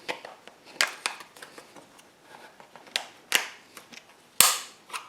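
Screwdriver prying at the spring clip on a door handle: several sharp clicks and short metal scrapes, the loudest about four and a half seconds in.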